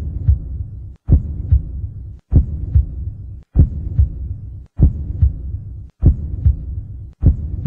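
A heartbeat-like double thump repeating about every 1.2 seconds, each pair of low beats over a steady low hum. There is a brief drop-out just before each pair, as in a looped sound effect.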